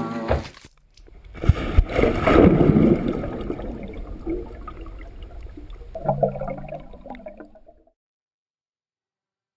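Water splash as a person plunges in, then muffled underwater bubbling and gurgling that fades out about eight seconds in. Music cuts off just at the start.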